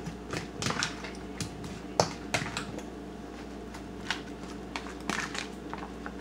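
Metal fork clicking and scraping against a plastic bowl while tossing zucchini slices in beaten egg: irregular light clicks, the sharpest about two seconds in.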